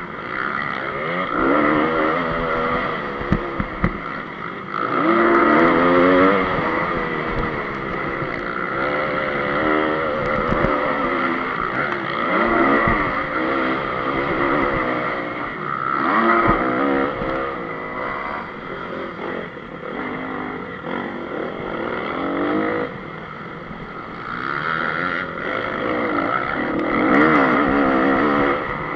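2014 Honda CRF250's single-cylinder four-stroke engine being ridden hard on a motocross track, revving up and dropping back again and again through throttle and gear changes. A few sharp knocks come about three seconds in.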